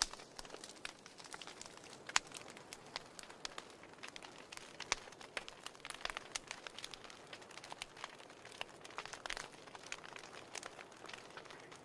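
Wood fire burning in a fireplace: irregular sharp crackles and pops from the burning logs over a soft steady hiss.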